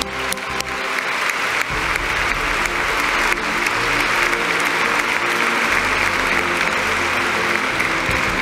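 Large crowd applauding, building over the first couple of seconds and then holding steady, with background music playing underneath.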